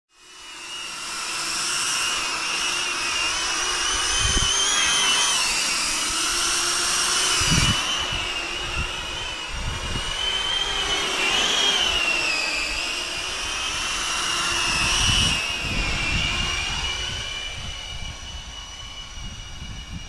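Cinewhoop FPV drone's motors and ducted propellers whining in flight, the pitch wavering up and down with throttle. Wind buffets the microphone in a few low thumps.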